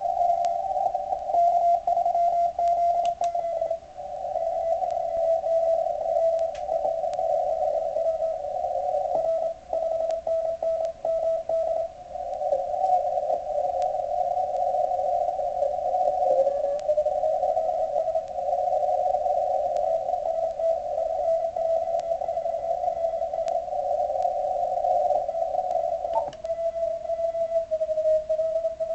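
Morse code (CW) signals from many stations received on an Icom IC-7600 transceiver: a crowd of overlapping keyed beeping tones pitched around 600–700 Hz heard through a 200 Hz filter. About 26 seconds in, the filter is switched to 50 Hz and the sound narrows to a single thinner tone.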